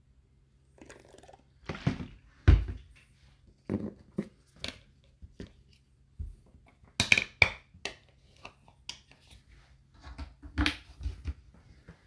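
Scattered plastic clicks and knocks of hands working at a dishwasher's door dispenser and its lids, the loudest knock about two and a half seconds in and a quick run of clicks about seven seconds in.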